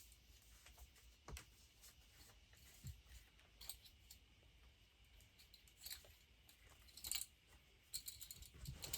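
Near silence broken by faint, scattered clicks and rustles of small craft pieces being handled.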